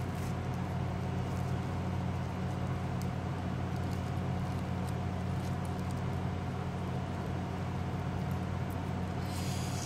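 A steady low mechanical hum with a few faint light clicks over it.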